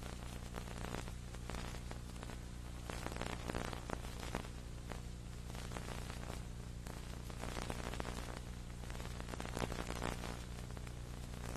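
Sound dropout on an old video recording: steady hiss and crackle with a low electrical hum and no programme sound.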